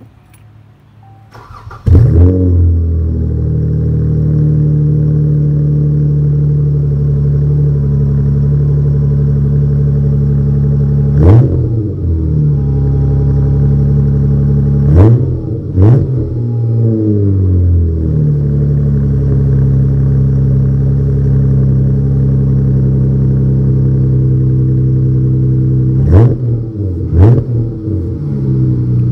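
Dodge Charger's 3.6 Pentastar V6 through a 3-inch Flowmaster Flow-FX exhaust, starting about two seconds in and settling into a steady idle. It is blipped on the throttle five times: once, then twice in quick succession, then twice more near the end, each rev rising and falling quickly.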